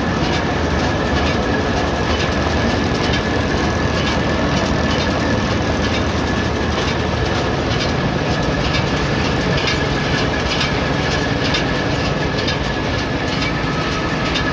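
Lely Welger RPC 445 Tornado baler-wrapper running off the tractor's PTO: a steady mechanical clatter with rapid ticking and a constant high whine, and the tractor engine running underneath.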